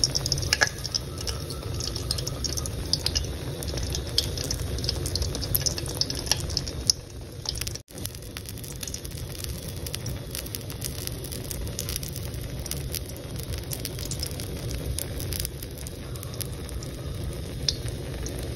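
Egg omelette frying in oil in a pan: a steady sizzle with scattered small crackles and pops. It cuts out for a moment nearly eight seconds in.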